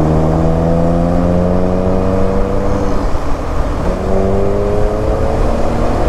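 Volkswagen T-Roc's exhaust as the car accelerates, its pitch climbing, dropping at a gear change about three seconds in, then climbing again. A sporty exhaust note heard over steady wind and road noise.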